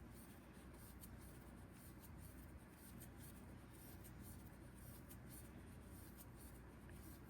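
Faint scratching with small light ticks: a crochet hook pulling yarn through loop after loop while chaining, over low room hiss.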